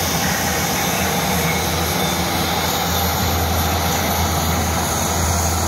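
Embraer A-29 Super Tucano's Pratt & Whitney PT6A turboprop engine and propeller running steadily as the aircraft taxis past, a constant low drone with turbine noise over it.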